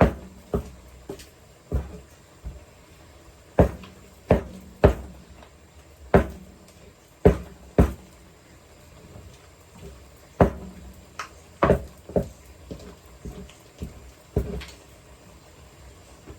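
Wooden rolling pin pounding boiled yam in a wooden fruit bowl to make pounded yam: irregular dull thuds, sometimes in quick pairs, coming less often in the second half.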